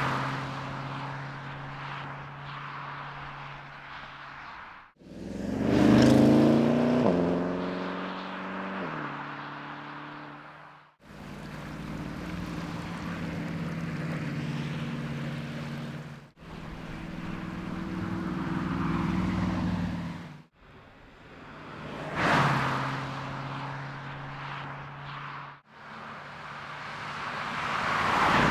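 2017 Porsche Panamera Turbo's 4.0-litre twin-turbo V8 heard in several short takes that cut off abruptly, mostly running steadily with tyre and road noise. About six seconds in, a loud drive-by comes through: the engine note rises, then drops in steps as it changes up. Two more passes swell up near the end.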